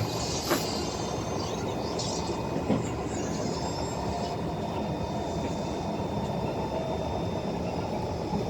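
Kawasaki C151 MRT train running at speed between stations, heard from inside the carriage: a steady rumble of wheels on the track, with two short knocks, about half a second in and just under three seconds in, and a faint high squeal early on.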